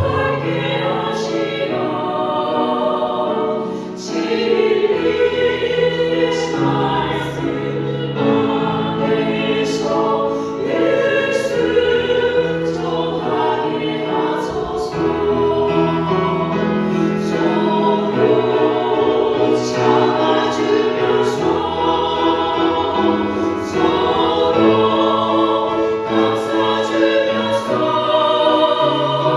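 Church choir singing a sacred song in long, continuous phrases.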